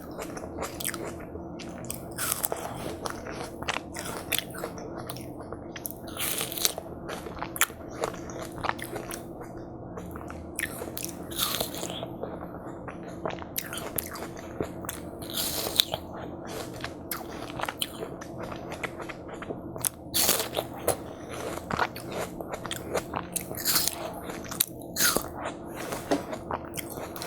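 Close-miked eating of watermelon hwachae: irregular bites into watermelon and chewing, a quick run of short crisp bursts, over a faint steady hum.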